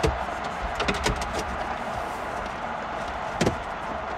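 Plastic clicks and taps of a 2014 Toyota Highlander's dash air vent and trim being pressed into place by hand: a few sharp clicks in the first second and a half, and a louder one about three and a half seconds in.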